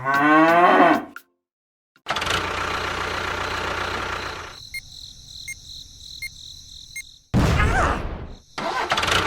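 A cow mooing, cut off about a second in. After a short gap comes a steady mechanical running noise that drops to a quieter stretch with faint regular ticks, then louder noise near the end.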